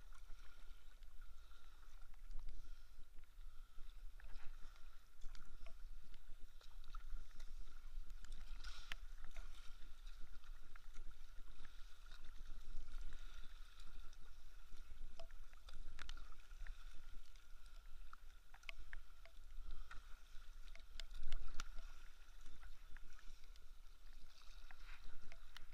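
Kayak paddle strokes dipping and splashing in flat lake water, with small splashes and water moving along the hull over a low rumble of wind on the microphone. A faint steady high tone runs underneath.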